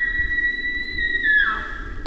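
Elk bugle: a high whistle that has climbed up, holds steady, then drops off about a second and a half in.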